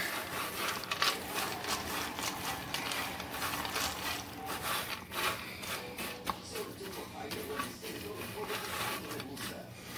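Pumpkin seeds being stirred as they toast in a hot pan: a steady dry scraping and rustling made of many small clicks.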